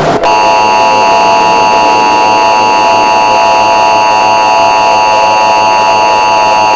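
Emergency Alert System attention signal: a loud, steady two-tone alert tone that starts a fraction of a second in, right after a short burst of static, and holds without change.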